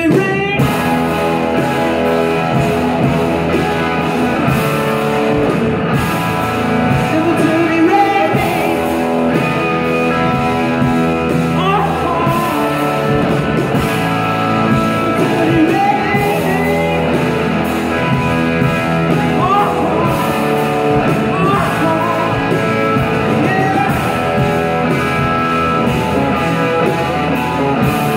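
Live rock band playing, electric guitars over a drum kit, with gliding, sustained guitar notes, heard from the audience in a large hall.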